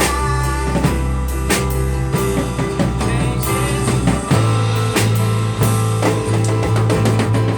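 A band playing an instrumental passage: drum kit hits over sustained bass notes and held chords, with the bass moving to a new note about four seconds in.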